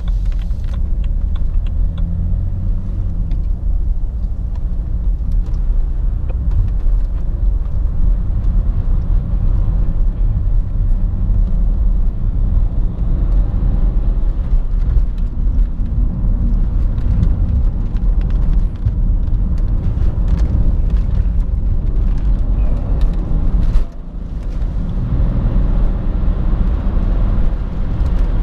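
BMW 330xd's 3.0-litre straight-six diesel engine pulling the car along, heard from inside the cabin with tyre and road noise. The level dips briefly once about 24 seconds in.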